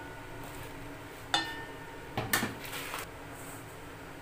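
Kitchenware clinking and knocking: one sharp clink with a short ring about a second and a half in, then a quick cluster of knocks a little past two seconds, and a lighter one near three seconds.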